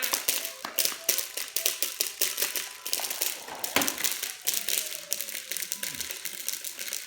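Rapid, irregular clicking and clacking of hard plastic from a baby's toy activity walker being handled, with a louder knock about four seconds in.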